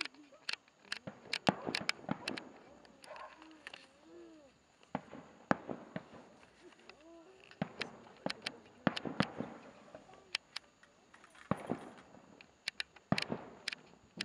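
Aerial firework shells bursting: an irregular run of sharp bangs and crackles that come in clusters, with short gaps between volleys.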